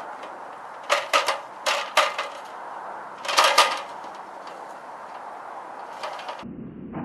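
Several short clattering knocks in three quick clusters against a steady hiss.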